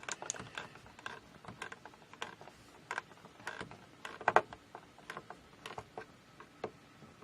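Screwdriver working at a dimmer switch in its wall box: irregular metal clicks and short scrapes, a few a second, with a louder cluster a little past halfway.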